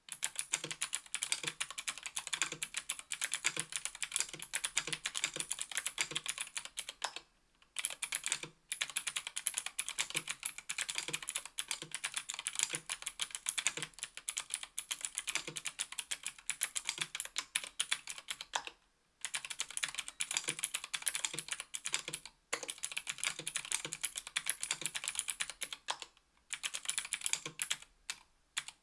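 Continuous typing on a KBDfans Tofu 60% aluminium keyboard with stock Gateron Blue Ink clicky 60 g switches and GMK keycaps: fast, dense keystrokes with each switch clicking, broken by a few short pauses.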